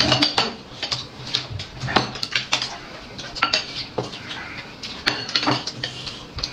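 Chopsticks and ceramic plates and bowls clinking and clattering as food is picked up and moved around the table, in short sharp clicks at an uneven pace.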